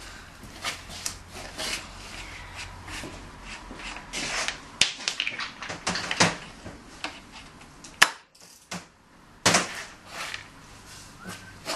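Irregular metallic clicks, knocks and scrapes of hand tools and parts being worked at a dirt bike's rear wheel axle; the sharpest click comes about eight seconds in.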